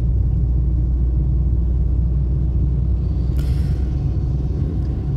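Steady low rumble of a car's engine and tyres heard inside the cabin while driving downhill. A brief burst of hiss comes about three and a half seconds in.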